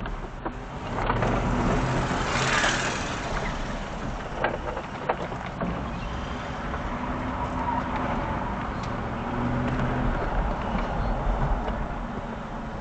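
Small go-kart engine running, louder from about a second in and rising and falling in level as the kart is driven.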